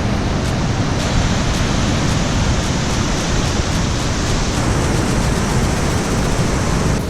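Havasu Creek's cascading water rushing: a loud, steady, even roar of falling water.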